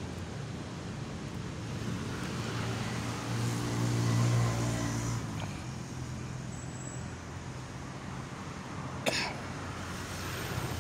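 Road traffic with a vehicle engine passing, loudest about four seconds in, then a single sharp click about nine seconds in.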